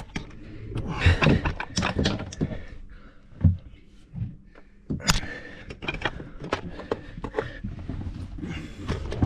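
Irregular knocks, clunks and clicks of hands and tools against the engine as a diesel fuel filter is fitted to the engine block, sounding boxed-in in a small compartment.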